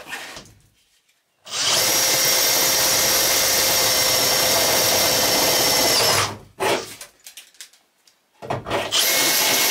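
Cordless drill boring through the van's thin sheet-metal wall, enlarging pilot holes for rivet nuts. It runs steadily for about five seconds, stops, and after a few short sounds starts a second run near the end.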